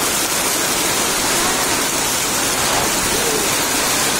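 Heavy rain falling, a loud steady hiss.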